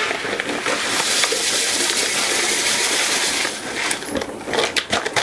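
Water running in a steady hiss that stops about three and a half seconds in, followed by a few knocks of metal pots and utensils.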